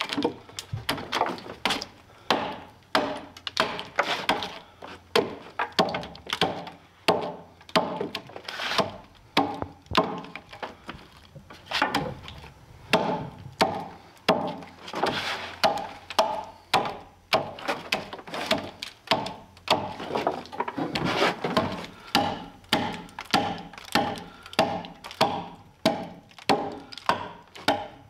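Short axe chopping into a round log to cut a corner notch: a steady run of blows, about one to two a second, with wood splitting and chips cracking between them.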